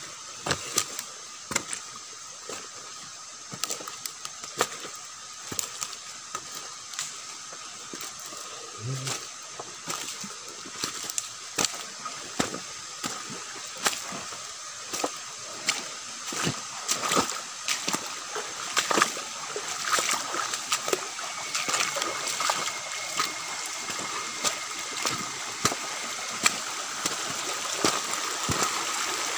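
Footsteps wading through a shallow stream, the water sloshing and splashing with each step, irregularly about once or twice a second, over a steady high hum.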